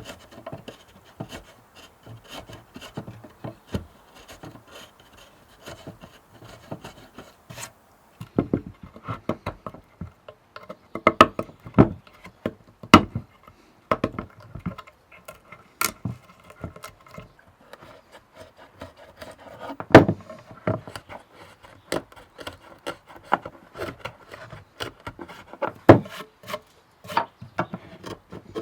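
Reconstructed Viking-age hand tools working wood: irregular scraping and rubbing strokes broken by sharp knocks, the loudest of them about two-thirds of the way in and again near the end.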